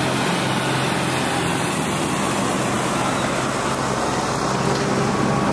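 Engine of a red tracked big-roll sod-laying machine running steadily as it lays a roll of natural grass sod, a steady low hum under an even mechanical noise.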